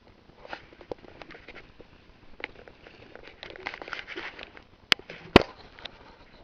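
Rabbit eating close to the microphone: a run of small crunching clicks and rustles, then two sharp knocks about five seconds in.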